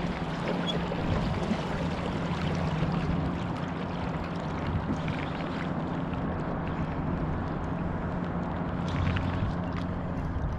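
Steady wind and water noise around a kayak on open water, with a low, even hum underneath and faint scattered ticks.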